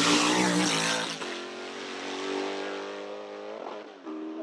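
Formula 5000 racing car's V8 engine at high revs, passing close by: loudest in the first second, then its note drops in pitch and fades as the car pulls away.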